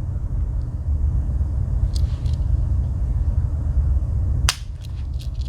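Steady low rumble under a few light clicks, with one sharp click about four and a half seconds in: a large Wenger Swiss Army knife's tools being handled.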